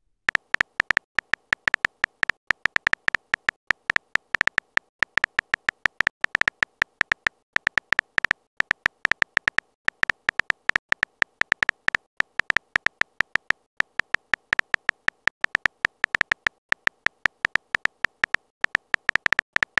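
Rapid run of short, sharp typing clicks, several a second with a few brief pauses. This is a synthetic keyboard typing sound effect as a text message is typed out letter by letter.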